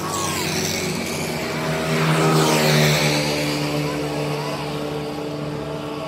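Road traffic passing close by: one vehicle's engine and tyre noise swells to its loudest about halfway through, then eases, over a steady engine drone.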